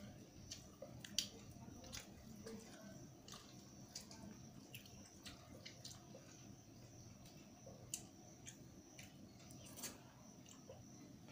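Faint soft squishing and scattered light clicks of fingers mixing rice and dal on a steel plate, with chewing, and a few sharper clicks. A faint steady high-pitched tone runs underneath.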